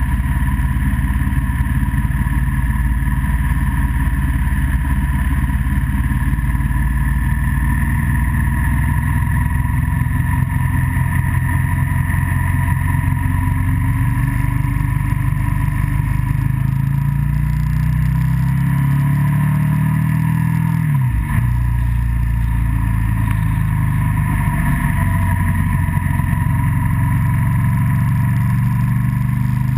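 Motorcycle engine running under way over a steady rush of wind and road noise; about fifteen seconds in it climbs in pitch as it accelerates, then drops sharply at a gear change about 21 seconds in and settles again.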